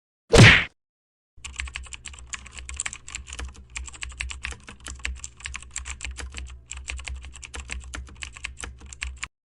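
A short loud hit, then, about a second and a half in, rapid computer keyboard typing: many irregular key clicks a second over a low hum, stopping just before the end.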